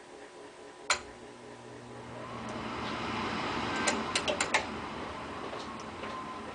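A control relay clicks, then the exhaust (draft inducer) fan of an American Standard Freedom 80 two-stage gas furnace starts with a hum and spins up, its whine rising for a couple of seconds and then running steadily. A quick run of several sharp clicks comes about four seconds in as the furnace controls switch during its call for heat.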